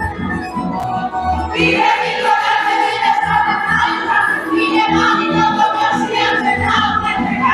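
Tamburica band with double bass playing a Slavonian folk circle-dance tune, with women's voices singing along from about a second and a half in.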